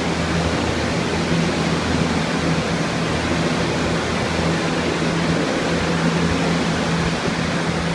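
Steady rush of air from many restoration air movers and dehumidifiers running together to dry out water-damaged walls, with a steady low motor hum underneath.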